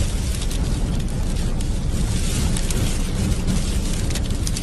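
Sandstorm wind buffeting, a dense steady low rumble with a hiss over it and many scattered sharp ticks.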